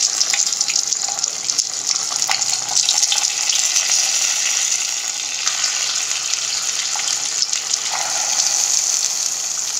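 Hot oil sizzling steadily in a kadhai as masala-stuffed small brinjals are laid into it over cumin, mustard seeds and curry leaves, with a few sharper crackles.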